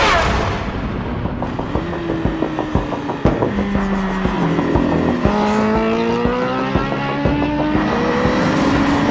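Honda CB1000R's inline-four engine accelerating through the gears: the revs climb, drop at an upshift about five seconds in and again near the end, then climb again. Background music with a regular beat runs under it, and a sharp whoosh opens it.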